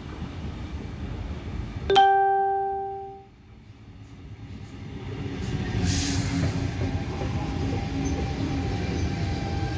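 Sydney Trains Tangara electric train giving a short horn blast about two seconds in, then its wheels and motors rumbling louder, with a faint whine, as it comes alongside the platform.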